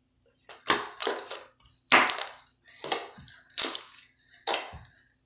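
Lotion slime being squeezed and worked by hand, its trapped air bubbles popping and crackling in about six short bursts.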